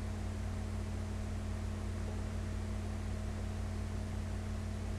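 Steady low hum with a faint fixed tone over an even hiss, unchanging throughout: background noise with no distinct event.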